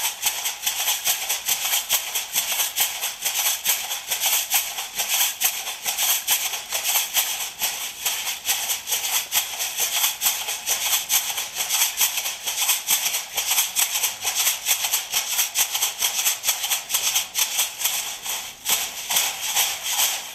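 Shell-shaker leg rattles made of condensed milk cans, worn around the lower legs and shaken by stepping, giving a fast, even, steady rattling beat: stomp-dance shell shaking heard on its own without singing.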